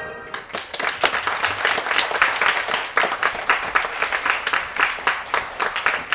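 An audience applauding with dense, irregular clapping that starts just as the music ends.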